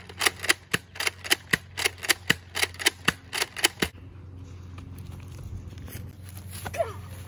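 A rapid run of about fourteen sharp, shot-like cracks, roughly four a second, which stops about four seconds in, leaving only a low background hum.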